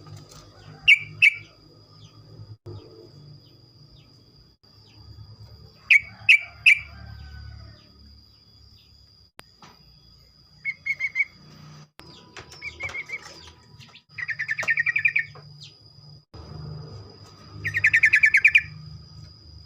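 Yellow-vented bulbul (trucukan) singing: short bubbly phrases of two or three notes, then two fast rattling trills in the second half, the rapid 'ropel' song.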